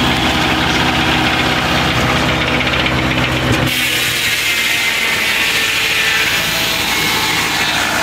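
Circular sawmill running, its blade sawing lengthwise through a log. The sound changes suddenly about three and a half seconds in, the deep part dropping away and a higher hiss taking over.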